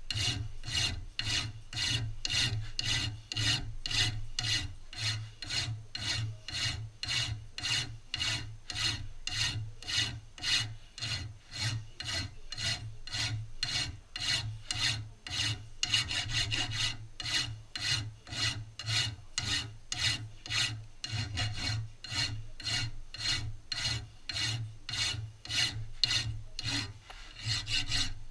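Flat hand file rasping across a metal shotgun part clamped in a vise, in a steady run of strokes a little over two a second.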